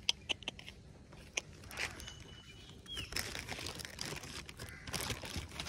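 A plastic carrier bag rustling and crinkling in a hand, in scattered clicks that grow denser near the end. A bird gives one short falling chirp about three seconds in.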